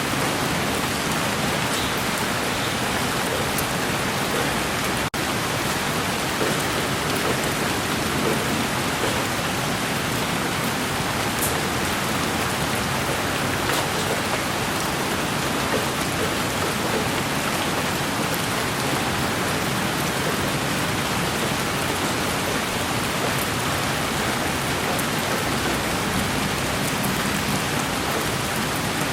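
Steady rain falling on a surface, an even, constant hiss with faint scattered drop ticks, broken by one very short dip in level about five seconds in.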